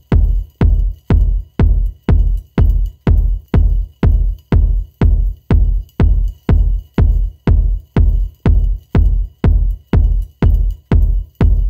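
Background electronic music with a steady, deep kick-drum beat, about two beats a second.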